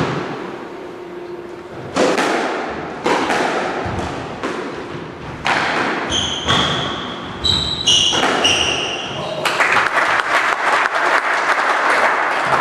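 Squash rally: the ball cracks off rackets and the court walls about once a second, and shoes squeak sharply on the wooden floor in the middle of the rally. Near the end the rally finishes in a dense spell of clapping and crowd noise.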